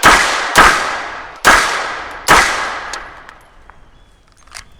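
Four 9mm pistol shots from a Glock 34 Gen 5: a quick pair, then two single shots under a second apart, each trailing off in a long echo.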